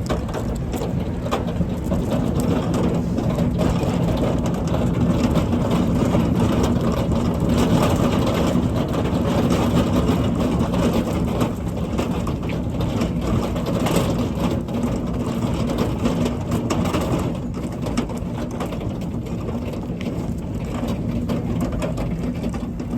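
Loaded store cart rolling, its wheels giving a steady rattling rumble full of small clicks.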